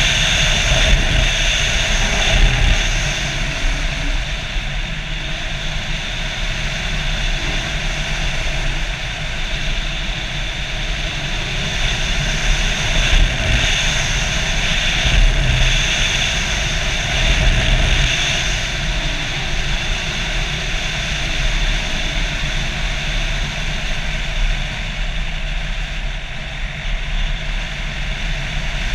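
Small propeller airplane, a radio-controlled model, in flight: motor and propeller running steadily with a high whine over wind rush on the onboard camera, swelling a little now and then.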